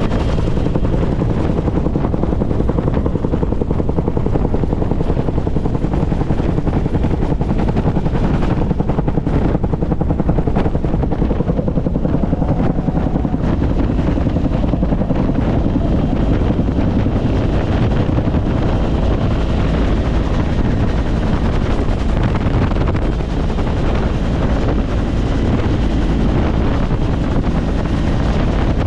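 Bell UH-1 Huey helicopter in flight, heard from inside the cabin: the turbine and the two-bladed main rotor make a loud, steady noise, with wind buffeting the microphone.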